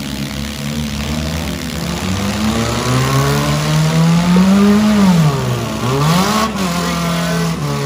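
Four-cylinder demolition derby car engines revving hard: one engine's pitch climbs, drops sharply and climbs again twice in the middle, then settles to a steady run, over the din of the other running cars.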